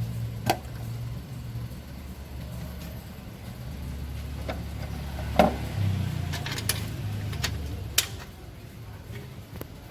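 A few sharp metallic clicks and knocks of hand tools and engine parts being handled, the loudest about five seconds in, over a low steady engine hum from another vehicle running in the background.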